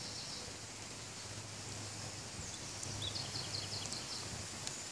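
Outdoor background noise with a low steady hum, and a short quick run of high bird chirps about three seconds in.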